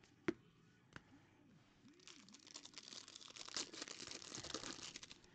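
A sharp click, then a fainter one, then about three seconds of quiet crinkly plastic rustling as a trading card is slid into a clear plastic sleeve and top loader.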